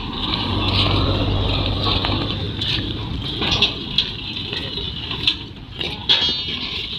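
Low, steady hum of a large diesel truck engine running, under general street noise, with a few sharp knocks in the second half.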